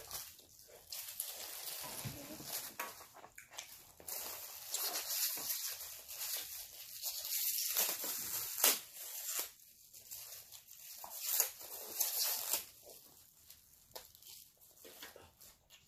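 Crinkling and tearing of a plastic wrapper, with short clicks, as a plastic fork is unwrapped, loudest through the middle and dying away near the end.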